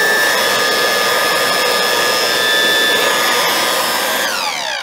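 Gtech Air Ram Mk1 cordless stick vacuum's 22.2-volt motor running with a steady high whine, still drawing some suction. Near the end it is switched off and winds down in a falling whine.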